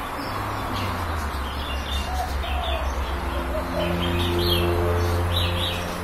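Small birds chirping in short repeated notes, with a few faint low coos from a spotted dove near the middle. Under them a steady low drone swells past the middle and eases off near the end.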